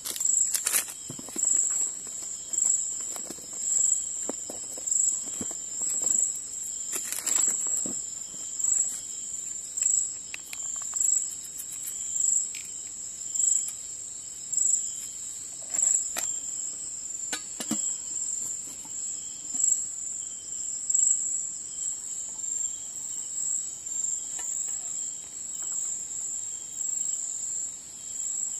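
Night insect chorus: a steady high-pitched trill that swells and fades in a regular rhythm. A few light rustles and knocks of packets and cookware being handled.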